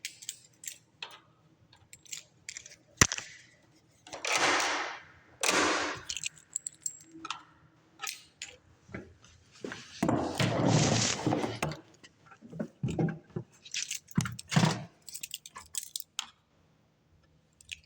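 Keys jangling, with sharp clicks, knocks and short rustling bursts from a newly fitted front door lock assembly being handled and tried out. One loud click comes about three seconds in.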